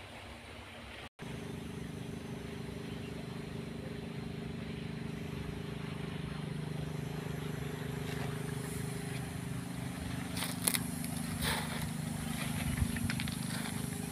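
A motor running steadily, a continuous drone. In the last few seconds there are a few footsteps crunching on pebbles.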